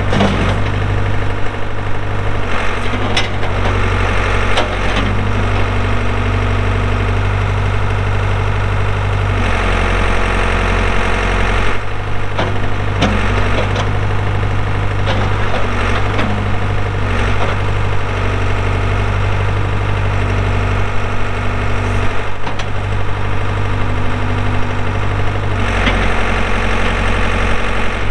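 Ford 555D backhoe loader's diesel engine running steadily while the machine is worked, with a stretch of about two seconds roughly ten seconds in where it works harder. Occasional sharp knocks.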